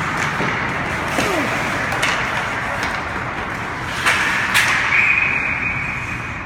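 Hockey game sounds: a steady wash of rink noise broken by several sharp knocks, then a referee's whistle holding one long, steady high note for about a second and a half near the end.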